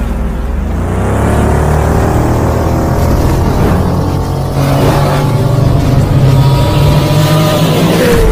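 Racing-engine sound effect, loud and continuous, revving with its pitch rising in sweeps.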